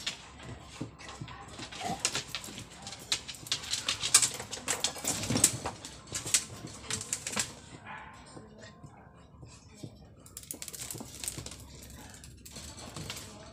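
Labrador puppies scrabbling and pawing at a wire-mesh cage, their claws making dense clicking and rattling on the mesh. It goes on for several seconds, eases off about eight seconds in, and picks up again briefly near the end.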